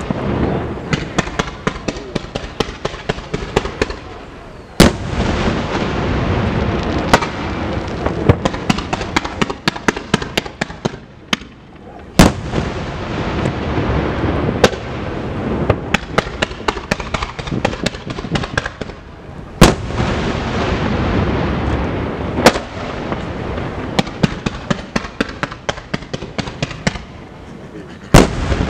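Aerial firework shells bursting in a finale barrage: a heavy boom every few seconds, with rapid runs of sharper cracks and a continuous rumble between them.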